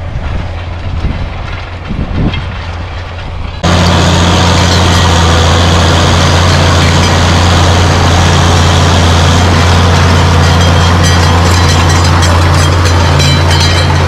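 John Deere 6830 tractor's six-cylinder diesel engine running steadily close by as it pulls a four-furrow reversible plough. It is quieter at first and becomes abruptly loud about four seconds in, with a light rattling near the end.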